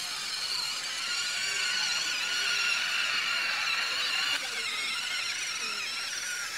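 Whine of a homemade RC rover's electric gear motors as it drives, several high tones that waver with its speed and shift about four seconds in.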